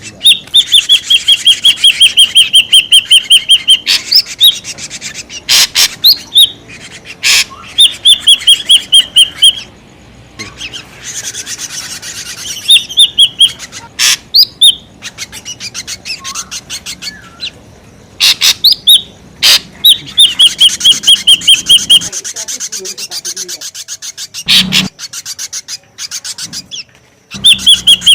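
Ashy drongo calling noisily, a lure recording used to draw drongos in. Fast trains of short repeated notes, each train lasting two to three seconds, alternate with short rising whistles and sharp clicks.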